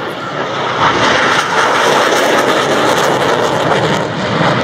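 Blue Angels F/A-18 Hornet jets flying low over the crowd: a loud, steady rushing jet-engine noise that swells about a second in and holds.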